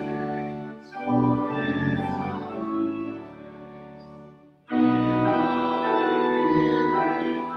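Pipe organ playing a hymn in sustained chords, with a short break about a second in and a longer fade around four seconds in before the next phrase starts abruptly.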